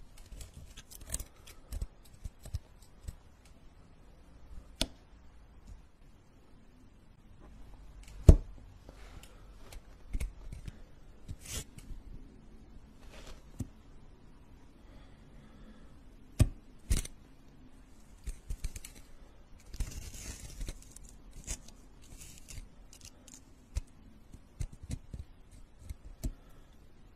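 Metal tweezers and a pointed needle tool working small, soft pink pieces on a cloth surface, picked up close: scattered light clicks, taps and soft scrapes, with a short rustle about twenty seconds in.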